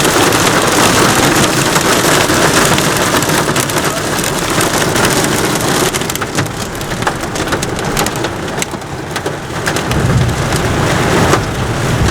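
Heavy rain pounding on a car's roof and windshield, heard from inside the cabin while driving through a thunderstorm. Sharp separate drop hits stand out in the middle, and a low rumble comes in near the end.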